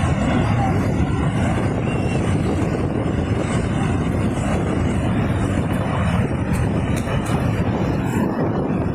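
Steady, loud rumbling rush of a landslide, earth and rock moving downhill without a break.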